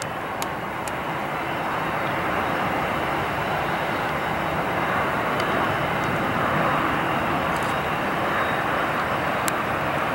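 Jet engine noise from an Aeroméxico Boeing 737 touching down and rolling out on the runway: a steady rushing roar that swells a little around the middle.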